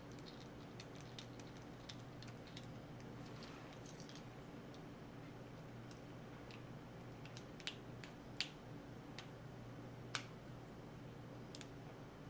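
Faint, scattered clicks and taps of small metal knife parts and tools being handled while reassembling a folding knife, the sharpest three between about 7 and 10 seconds in, over a steady low hum.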